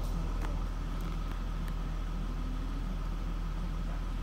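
Steady low mechanical hum, like an idling engine or running machinery, with a few faint clicks.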